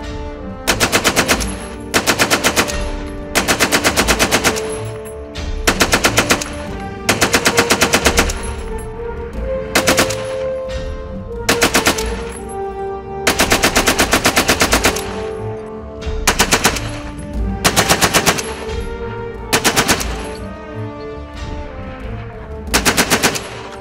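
.303 Vickers water-cooled medium machine gun firing about a dozen short bursts, each of half a second to a second and a half, with a pause of a second or two between them.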